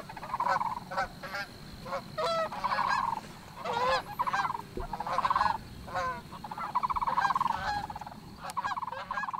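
A flock of Canada geese flying overhead, honking continuously with many overlapping calls.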